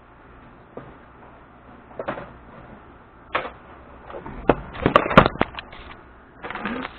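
Metal keychain being handled: keys, a titanium key organiser and small tools clicking and clinking against each other, with scattered single clicks and a dense clatter about five seconds in.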